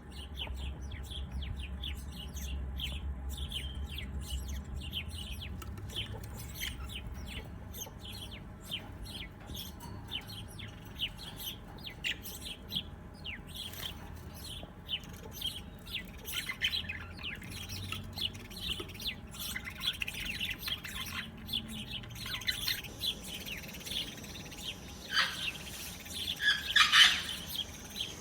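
Small birds chirping, with many short calls overlapping and a low rumble beneath them for the first several seconds. Near the end the calls grow louder and denser.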